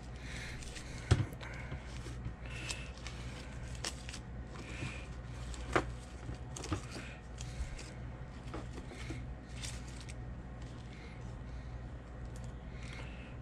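Stick-on lure eyes and their packets being sorted through by hand: scattered light clicks, taps and rustles, with a sharper click about a second in and another about six seconds in, over a steady low hum.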